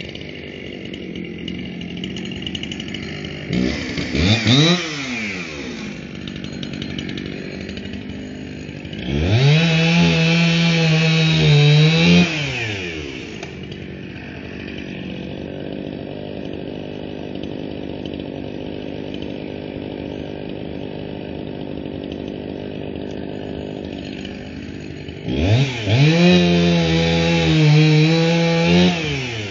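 Two-stroke gas chainsaw idling, blipped up and back down once, then held at full throttle for a few seconds and dropped back to idle. Near the end it is run at full throttle again, cutting into a log.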